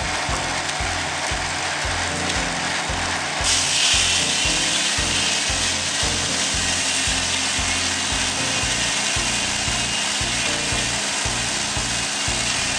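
Tractor-driven sawmill running with a steady mechanical noise. About three and a half seconds in, the saw starts cutting into the log and the sound grows louder and brighter, holding steady through the cut.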